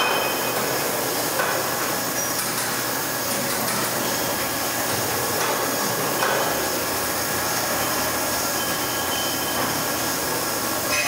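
Large Kinwa CL78 CNC metal lathe running, a steady mechanical noise with faint high tones over it.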